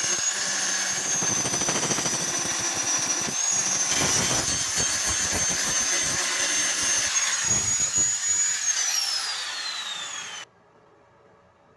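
Angle grinder with an abrasive disc grinding down a weld bead on a steel corner joint: a steady high motor whine over the rasp of the disc on the metal. Near the end the whine falls as the disc spins down, then the sound cuts off abruptly.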